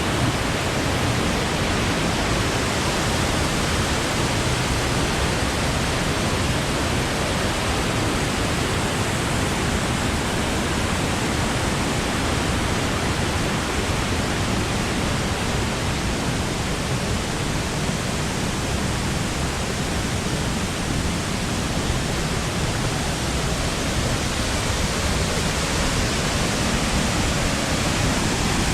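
Waterfall crashing steadily into its plunge pool, a dense unbroken roar of falling water.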